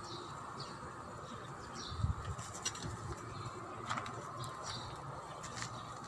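Birds chirping now and then over a steady high-pitched hum, with one dull thump about two seconds in.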